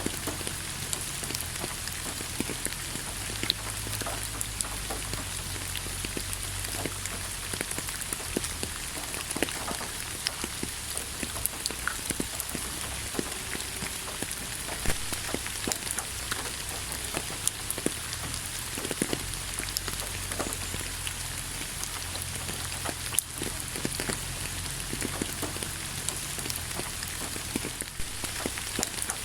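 Steady rain falling, with a constant hiss and many separate drops pattering and ticking on a surface, over a low steady rumble.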